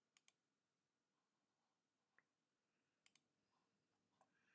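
Faint computer mouse clicks: a quick double click just after the start and another about three seconds in, with a fainter single click or two between, against near silence.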